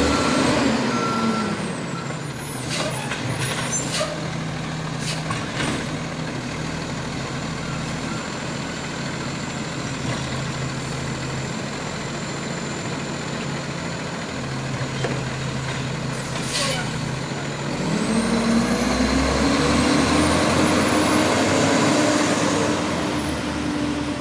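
Garbage truck's diesel engine running at low revs, with a few short sharp noises from the truck; about eighteen seconds in the engine revs up and a high whine rises as the truck pulls away.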